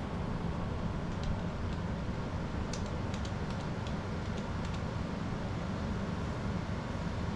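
A few light clicks of small metal parts, a washer and mirror-mount nut being handled and fitted on a motorcycle mirror mount, over a steady low background rumble.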